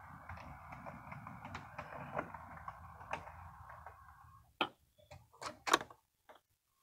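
HO scale model diesel locomotive running along the track: a steady motor hum with light, frequent clicking of its wheels over the rail joints and turnouts. About four and a half seconds in the hum stops, followed by a few sharp clicks.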